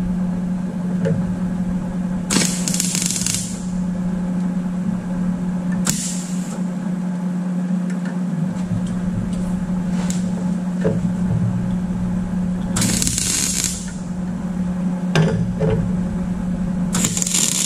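MIG welder's arc running on thin 1.2 mm plate: a steady buzzing crackle over a constant hum. Four short hissing bursts, each about a second long, come and go.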